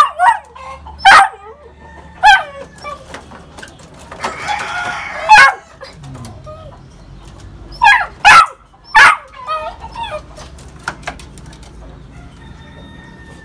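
Beagle puppy barking: about seven short, high barks, three of them in quick succession about eight seconds in.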